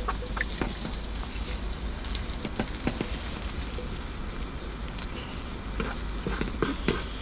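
Eggs sizzling in a small frying pan on a camp stove while being stirred and scrambled, with scattered clicks and scrapes of the spatula against the pan. Salt is shaken over the eggs partway through.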